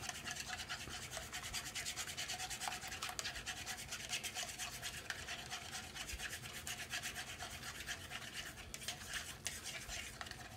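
Beaten egg being stirred quickly with chopsticks in a non-stick frying pan: a fast, rhythmic scraping, many strokes a second.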